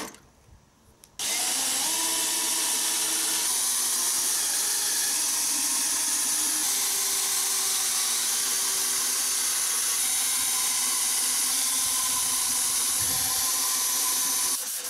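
Cordless drill/driver running under load, driving screws into the plywood frame of a 3D printer, its motor pitch shifting as the load changes. The sound starts about a second in, after a brief quiet gap.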